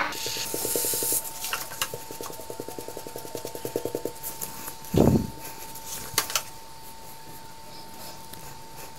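A thin plastic card scraping and rubbing across soft whipped-cream frosting as the top of a cake is smoothed flat on a metal turntable. A fast, even rattle runs for the first four seconds, there is one dull thump about five seconds in and a couple of sharp clicks just after, and a faint steady whine sits under it all.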